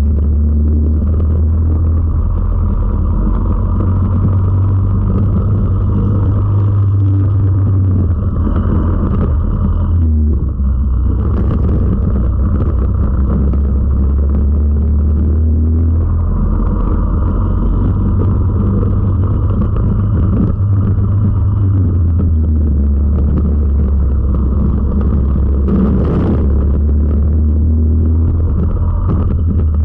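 Four-stroke kart engine heard onboard, running at racing speed, with the note dipping briefly about a third of the way in as the throttle eases, then picking up again. A short sharp noise near the end.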